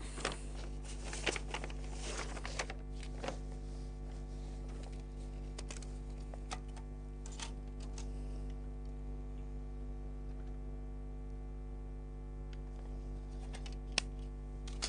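A steady low hum with scattered light clicks and rustles, most of them in the first few seconds and one sharper click near the end.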